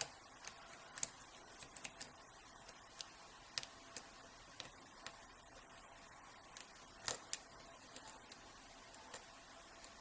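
Hook pick clicking and tapping against the pins inside an Iseo euro cylinder lock during single-pin picking: scattered faint, sharp clicks at an uneven pace, the loudest right at the start and about seven seconds in.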